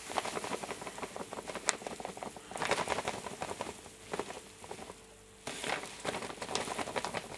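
Crushed Munich malt poured in a stream onto a growing pile of grain in a muslin-lined bowl: a dense, steady pattering of kernels, swelling twice with a quieter lull between.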